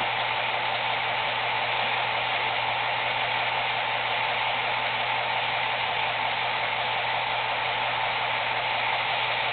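HO scale coal hopper cars rolling past on the track, a steady clatter of model wheels on rail, with a steady low hum underneath.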